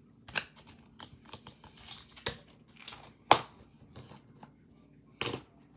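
Slime being squeezed and stretched by hand, giving a string of sharp, irregular pops and crackles, the loudest a little past three seconds in.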